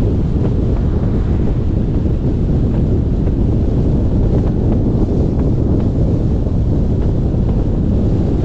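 Steady wind rumble buffeting the microphone over the road and tyre noise of a Ford Fusion driving at speed, with faint light ticks scattered through it.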